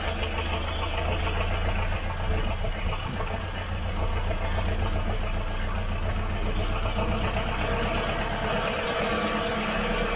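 Zetor 7011 tractor's four-cylinder Zetor Z7001 diesel engine running steadily, heard close to its upright exhaust stack.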